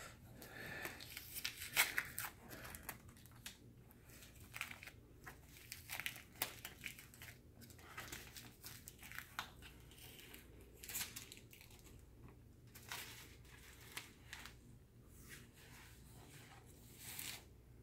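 Soft white fabric protective sleeve rustling as it is handled and slid off a soundbar, in faint, irregular bursts.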